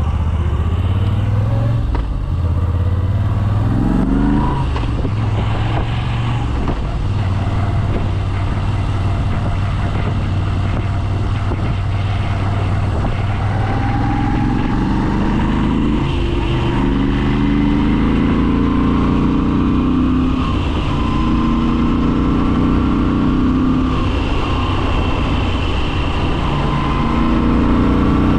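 Moto Guzzi V7 850 Special's air-cooled 90° V-twin on its original exhaust, running under way as heard through a microphone inside the rider's helmet. The engine pitch rises a few times as it accelerates.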